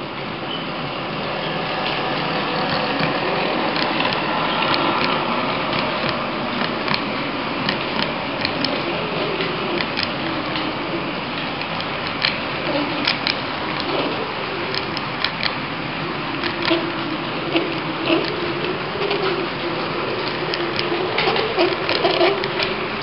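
HO-scale model train passing close by: the diesel locomotive's small electric motor whirring and the coal hopper cars' wheels rolling over the track, with irregular sharp clicks. It grows louder over the first few seconds as the locomotive approaches.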